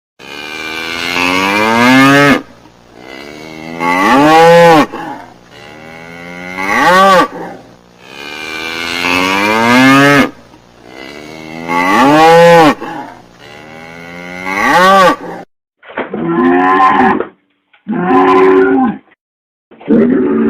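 Cattle mooing: a string of six long moos, each about two seconds and swelling in pitch and loudness, then three shorter moos near the end.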